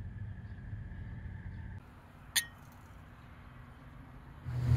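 A single sharp clink of tableware with a brief ring, about two and a half seconds in, over faint low background noise.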